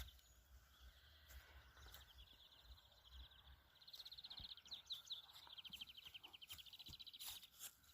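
Faint high trilling made of rapid pulses, in runs that start about two seconds in and carry on for several seconds: a small creature calling in the meadow.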